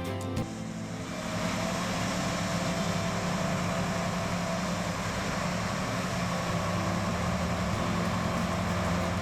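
John Deere S780 combine's diesel engine and machinery running steadily in the field, a constant drone.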